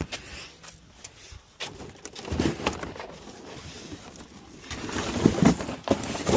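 A bird calling a few times in short low notes, the loudest just past the middle, among scattered sharp clicks and knocks.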